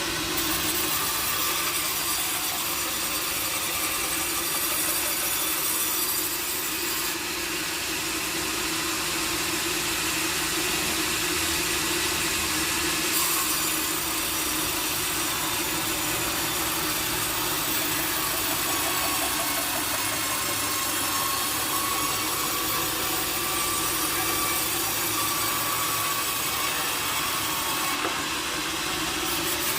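Sawmill saw cutting through teak, a steady machine noise with the rush of the blade in the wood.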